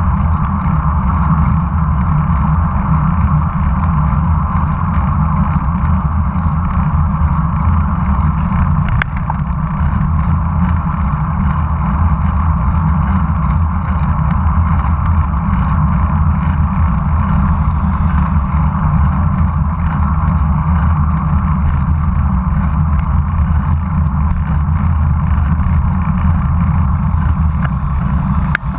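Steady wind rumble on the microphone of a camera riding on a moving road bicycle, with road and tyre noise underneath. A brief sharp click sounds about nine seconds in.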